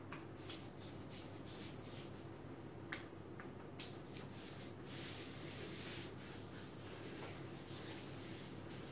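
Faint hand rubbing of massage oil or lotion into the skin of a thigh, a steady hiss that grows from about halfway through. It is broken by a few sharp clicks, the loudest about half a second in and near four seconds in, from the plastic bottle being handled.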